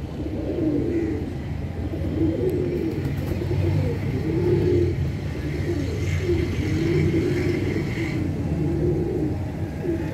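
A flock of domestic pigeons cooing, one rolling coo after another about once a second, over a steady low rumble.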